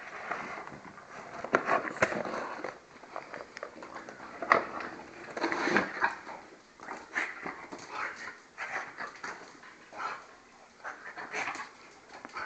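French bulldog tearing and chewing a cardboard box: irregular crackles and rips of cardboard, with the dog's own noises mixed in.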